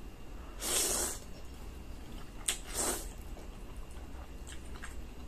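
A person slurping strands of spaghetti into the mouth twice, about a second in and again near three seconds, with faint mouth clicks of chewing afterwards.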